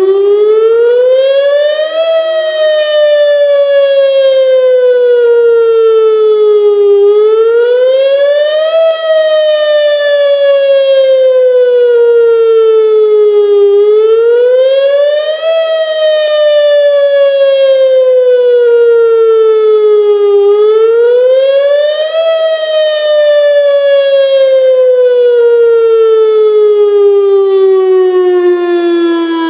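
Whelen WPS-2904 electronic outdoor warning siren sounding a rising and falling wail at full volume. Each cycle rises quickly for about two seconds and falls slowly for about five, and it peaks four times. This is a routine weekly test of the tornado warning siren.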